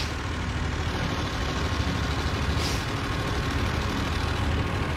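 Steady low rumble of outdoor background noise, with a brief hiss a little past halfway.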